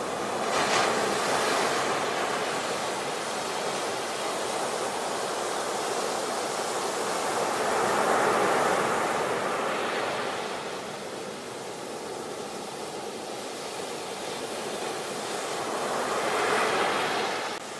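Sea surf washing up onto a beach: a steady rush of breaking waves and foam that swells three times, about every eight seconds.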